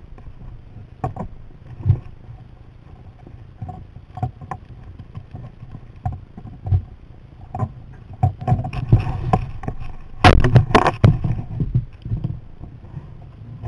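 Sea kayak being paddled on calm water: scattered knocks and water noise from the paddle strokes and the hull, with a louder stretch of splashing and clatter about ten seconds in.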